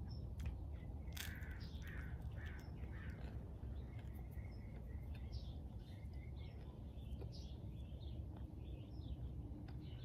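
Wild birds chirping and calling, many short calls overlapping throughout, over a steady low background rumble.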